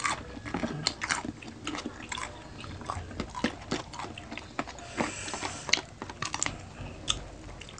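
Close-up biting and chewing of crispy pata, deep-fried pork knuckle, with many sharp, irregular crunches from its crackling skin.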